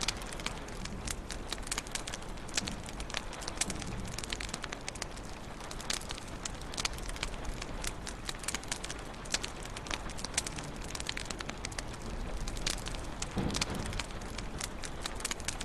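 Wood fire in a fireplace crackling, with frequent sharp irregular pops over a steady low hiss. A brief low rumble comes near the end.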